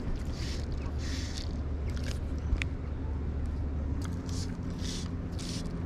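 Fly line being stripped in through the rod guides in short pulls: a rhythmic scraping swish about twice a second, with one sharp click about two and a half seconds in.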